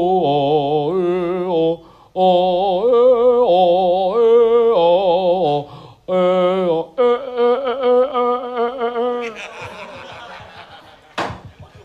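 A solo voice singing a slow Javanese-style tembang melody in phrases, holding long notes with a wavering vibrato. Near the end the singing fades out, followed by a single sharp click.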